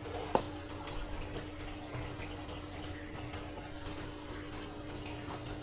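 Water running in a fish tank, with a steady electric hum from its pump throughout; one sharp click about half a second in.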